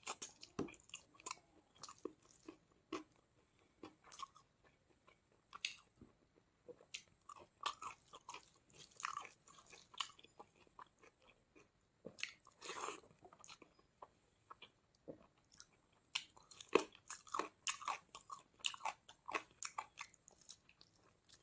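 Close-up eating sounds of a person chewing and biting into a chicken leg meal: irregular crunches, smacks and wet chewing clicks, with a few louder bites about 13 and 17 seconds in.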